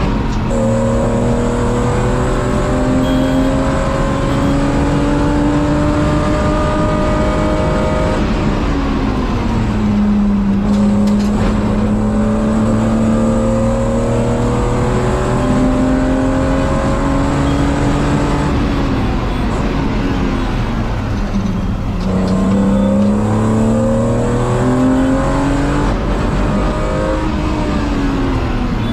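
Car engine accelerating hard through the gears: the pitch climbs slowly, falls at a gear change about eight seconds in and again around twenty seconds in, then climbs again, with another drop near the end.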